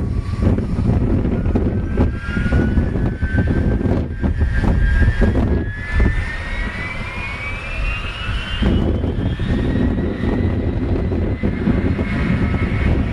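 The three General Electric turbofans of a McDonnell Douglas DC-10-30 are spooling up for takeoff. A whine rises steadily in pitch over a deep, continuous jet rumble.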